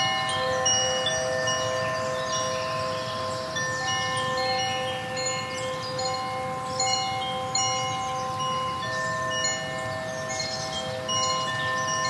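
Chime tones ringing in long, overlapping notes at several pitches, each held for seconds, with faint high chirps above them.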